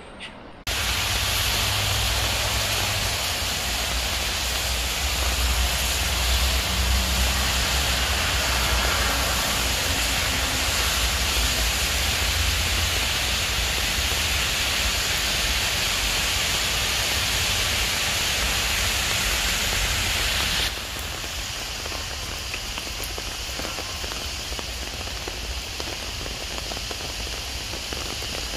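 Steady heavy rain falling on trees and a wet paved path. It starts suddenly under a second in, and about two-thirds of the way through it drops to a slightly lighter, still steady downpour.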